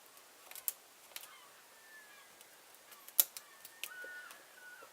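Small sharp metallic clicks of a lock pick and tension tool working the pins of a security-pinned padlock cylinder out of a false set, with one louder click about three seconds in.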